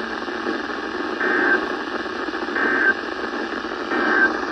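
Emergency Alert System end-of-message signal on a weather radio broadcast: three short two-tone data bursts about a second and a half apart, over steady radio static. The bursts mark the end of the alert message.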